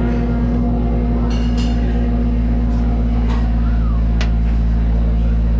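Live band on stage holding a loud, steady, low amplified drone, with a few short high squeaks and clicks over it.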